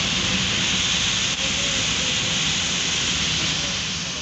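Steady hiss of heavy rain on a car and its tyres on a flooded road, heard from inside the car, slowly fading toward the end.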